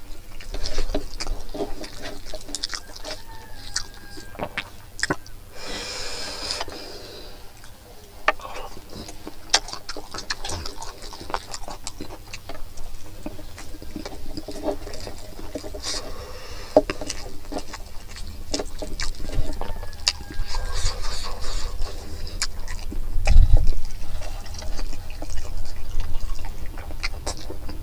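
Close-miked eating: wet chewing and lip-smacking on braised pig head meat and rice, with many small clicks and crackles as fingers work the food on the plate. A dull low bump comes about 23 seconds in.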